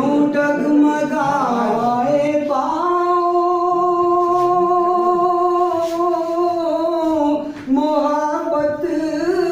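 A man singing a ghazal in a single voice, drawing out vowels without words. He holds one long steady note for about five seconds in the middle, with gliding melodic turns before and after it.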